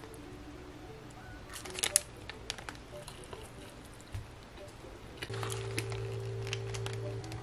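Paper sandwich wrapper crinkling and rustling in the hands in short bursts. A steady low hum starts about five seconds in.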